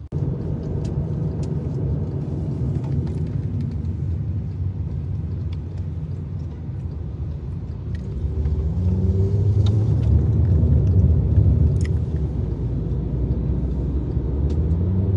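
Low, steady rumble of a car driving, heard from inside the cabin, growing louder about halfway through.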